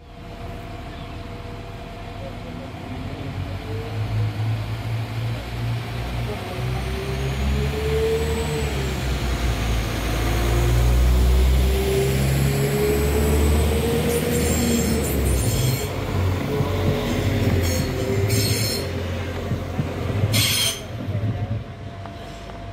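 A Northern CAF Civity multiple unit running along the platform close by: a low rumble that builds to a peak about halfway through and then eases, with a wavering whine over it.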